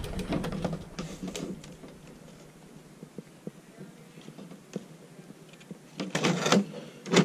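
Hands fumbling at a plastic RC truck on bedding: scattered small clicks and rustles, with a louder burst of clicking and rustling about six seconds in and another sharp one near the end.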